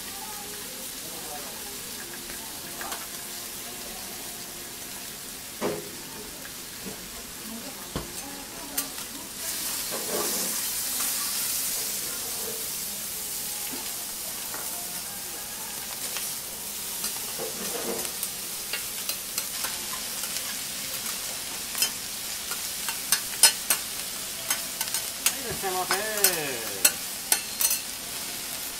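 Food sizzling on a steel teppanyaki griddle while metal spatulas stir and scrape across it. The sizzle swells for a few seconds about a third of the way in, and near the end comes a quick run of sharp spatula clicks and taps on the steel.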